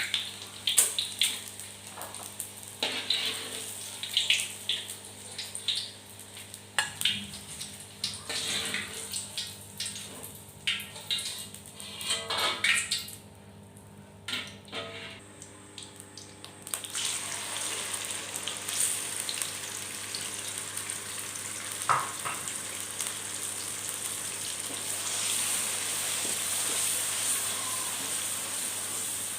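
Kitchen handling with scattered clicks and knocks, then from about halfway in a steady sizzle of food frying in hot oil in a pan.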